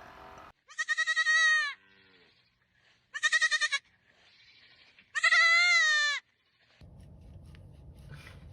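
Three loud, high, quavering bleats, each about a second long, with short pauses between them.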